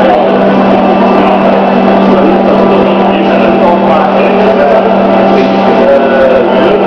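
Electric spindle lifting jacks running to raise a railcar, giving a steady low hum with busier mechanical sound above it.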